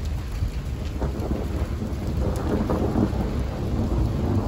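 Thunder rumbling from a passing severe thunderstorm, swelling about two seconds in, over a steady low rushing noise.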